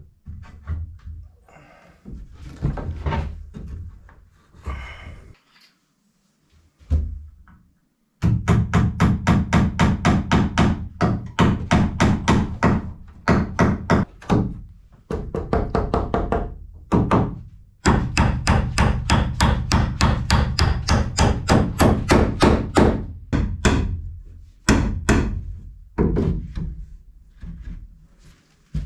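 Claw hammer driving nails into wooden framing. A few scattered knocks come first, then, about eight seconds in, long runs of rapid, evenly spaced blows, about three a second, with short pauses between the runs.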